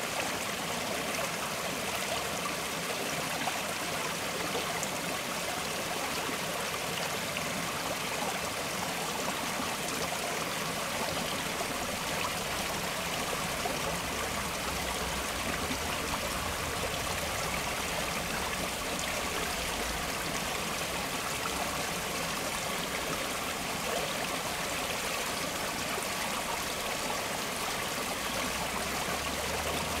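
Gentle forest stream flowing and trickling steadily, an even rush of water without pauses.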